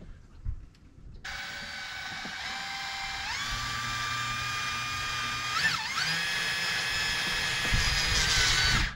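Cordless drill spinning a 1-inch wood-boring spade bit into a UTV's plastic dash panel. The motor whine starts about a second in, steps up in pitch twice as the trigger is squeezed harder, holds steady, and stops just before the end.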